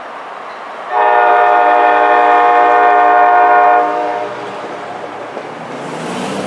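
Locomotive air horn sounding one long blast of about three seconds, a chord of several steady tones, as the train approaches. After the blast, the approaching train's rumble grows louder.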